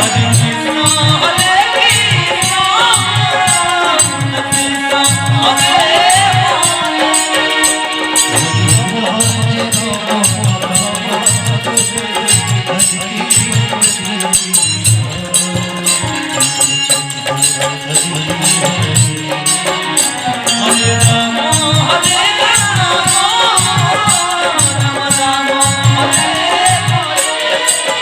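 Kirtan music: a steady drum beat under constant jingling percussion, with a melodic line over it.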